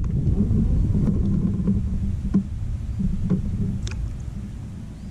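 Low, steady rumble of wind and water noise on a kayak-mounted action camera, easing off near the end, with a few light clicks.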